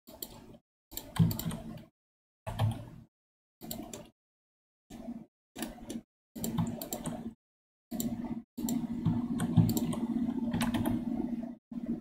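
Computer keyboard typing with clicky keystrokes, coming in short stretches that cut in and out abruptly, with a low hum under the longer stretches.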